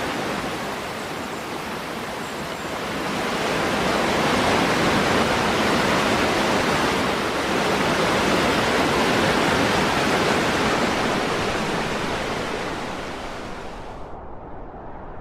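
Rushing river water, a steady full roar that swells a few seconds in and then fades. Near the end it suddenly turns muffled as the high end drops away.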